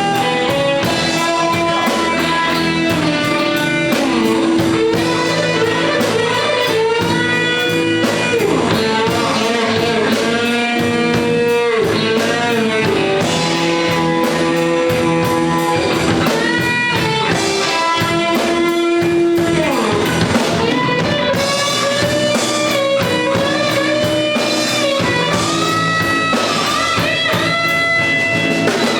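Blues music: a guitar-led band with drums playing, the guitar lines bending in pitch.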